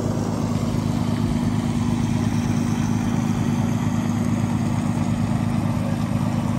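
Steady mechanical hum with a constant low tone, a motor running evenly without change, heard while diesel is pumped into a school bus.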